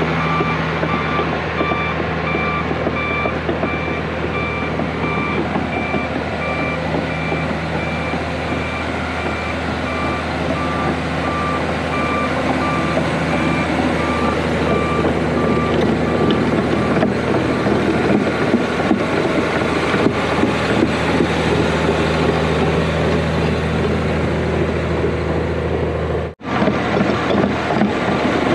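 John Deere 850J crawler dozer's diesel engine running steadily, with its backup alarm beeping at an even rate through roughly the first sixteen seconds as it reverses. There is a brief cut in the sound near the end.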